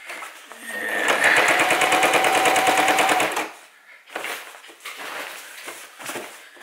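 Electric household sewing machine stitching a double seam through canvas: it speeds up about a second in, runs steadily with rapid needle strokes, and stops at about three and a half seconds. A few fainter short sounds follow near the end.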